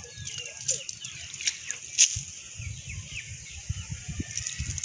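A wet cast net rustling and clicking as it is handled and gathered up, with a sharp click about two seconds in. Short bird chirps can be heard in the background.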